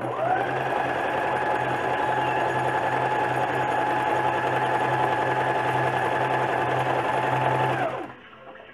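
Elgin Genius Plus JX4035 domestic sewing machine running steadily for about eight seconds, sewing the J decorative stitch. Its motor whine rises as it starts and falls away as it stops near the end.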